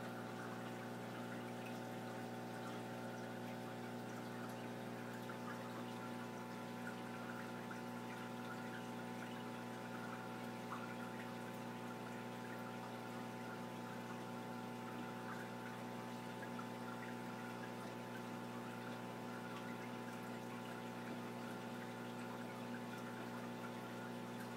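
Steady electrical hum of a saltwater aquarium's pumps, with faint running water.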